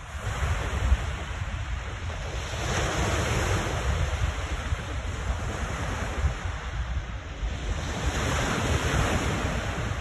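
Lake Ontario waves breaking and washing on the shore, the surf swelling up every few seconds. Strong wind buffets the microphone with a steady low rumble.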